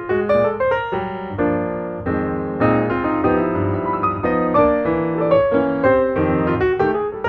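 Background piano music, a melody of single struck notes with chords held in the middle.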